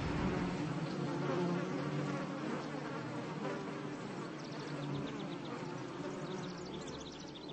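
Flying insect buzzing, slowly fading as it moves away. Clusters of short high chirps join in during the second half.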